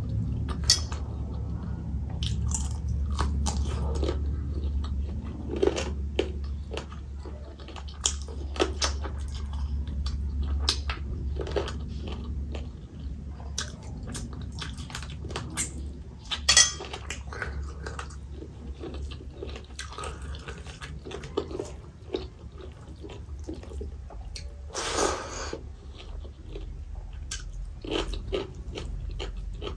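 A person chewing and eating rice with chicken curry by hand, with many short irregular clicks and wet squishes as fingers mix rice on a steel plate.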